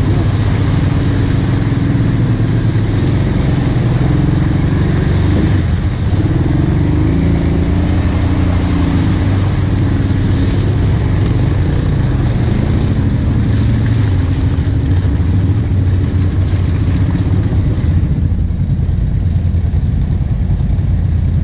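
Kawasaki KVF 750 Brute Force ATV's V-twin engine pulling at low speed through a muddy trail, its pitch rising and falling as the throttle is worked on and off. It eases off a little near the end.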